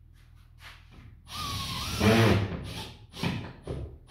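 Tools and parts being shifted on a workshop shelf. A loud scraping burst lasts about a second and a half, starting a little over a second in, followed by a few shorter knocks and scrapes near the end.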